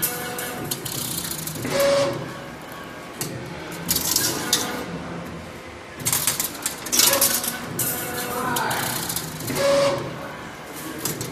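CNC 3D wire bending machine working through its cycle: motors whining up and down between sharp clicks and short hissing bursts as the wire is fed and bent. The pattern comes round again every few seconds.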